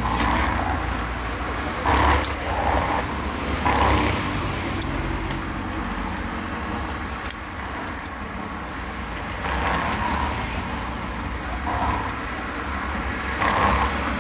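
Road traffic passing, a steady low rumble that swells as vehicles go by, with a few sharp clicks scattered through it.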